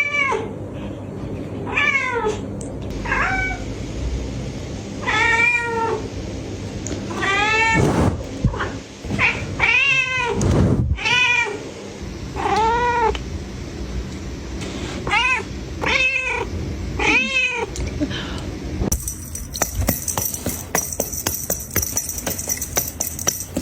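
A cat meowing over and over, about a dozen rising-and-falling meows a second or two apart. After the meows stop, in the last few seconds, a rapid clicking rattle takes over.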